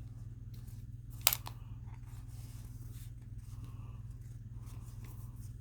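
Small handling noises of a vape mod and its battery being fitted, with one sharp click about a second in, over a steady low hum.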